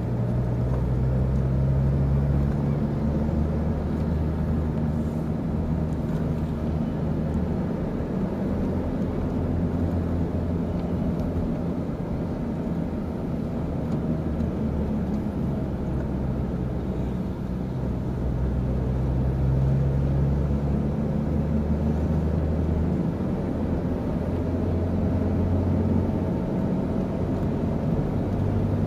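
4x4 engine running hard and heard from inside the cabin, its note rising and falling with the throttle as the vehicle drives over sand dunes, over a steady rush of tyre and wind noise.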